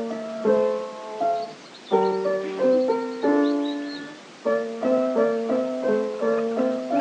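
Background piano music: a gentle melody over struck chords whose notes fade after each strike, played in short phrases with brief pauses about two seconds in and again past four seconds.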